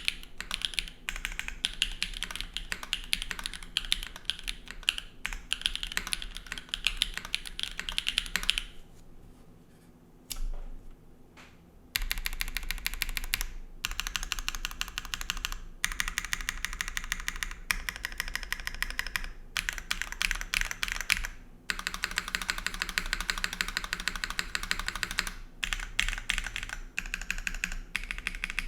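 Fast typing on a TYP60 SL custom mechanical keyboard with stock SWK Catmint switches, GMK keycaps, a full aluminium plate, O-ring mount and no foam. Rapid keystrokes pause for about three seconds roughly a third of the way in, then resume with a few brief breaks.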